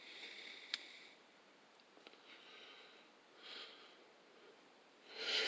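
Faint breathing through the nose: a few short breaths, with one light click a little under a second in.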